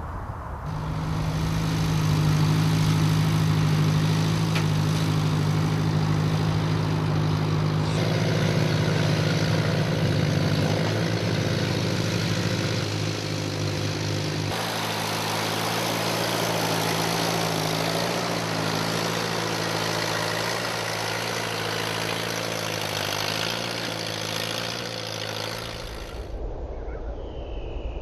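An engine running steadily at a constant speed. Its tone changes abruptly twice, about 8 and 14 seconds in, and it stops shortly before the end.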